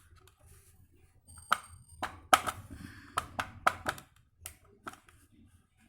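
Hard plastic vacuum cleaner parts being handled: a quick series of sharp clicks and taps, about a dozen, from about a second and a half in until near the end.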